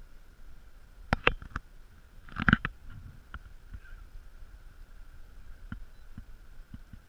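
A few sharp knocks and clunks aboard a small fishing boat, the loudest cluster about two and a half seconds in, followed by scattered light clicks, over a faint steady hum.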